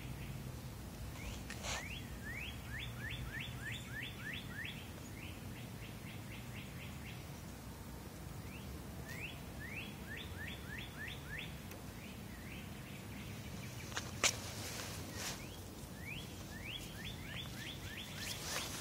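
Small songbird singing runs of quick, downward-sliding chirps, about five notes a second, repeated four times with short pauses between runs, over a steady low background rumble. A single sharp click about two-thirds of the way through.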